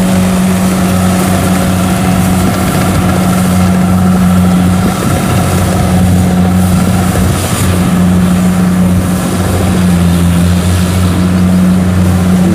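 Kubota DC70 Plus rice combine harvester's diesel engine running steadily under load while cutting and threshing rice, with the rush of the threshing drum and straw being thrown out behind. The engine note dips briefly about ten seconds in.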